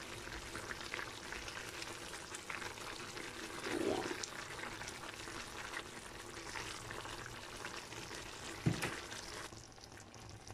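A pan of sardine and instant-noodle stew simmering, bubbling and crackling, while a silicone spatula stirs through the noodles. A single knock sounds about three-quarters through, and the bubbling is quieter after it.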